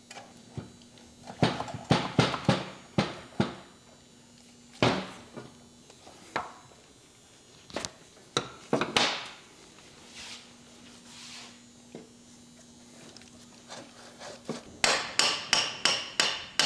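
Hammer blows on the rear engine plate of a Willys 134 F-head block, tapping it loose. Scattered single strikes and short clusters give way to a quick run of ringing metal blows near the end.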